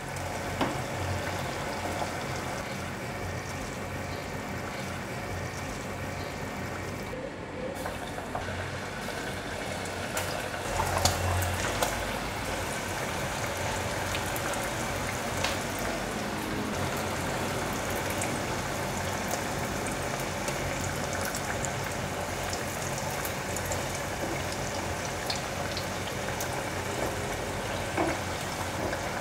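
Potato patties deep-frying in a pot of hot oil: a steady bubbling sizzle, with a few light clicks and a louder bump about eleven seconds in.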